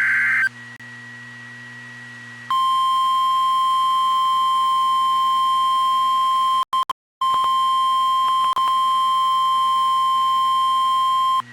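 Weather radio warning alert: a short burst of data tones ends, then after about two seconds the long, steady single-pitch warning alarm tone sounds for about nine seconds, broken by a brief dropout midway.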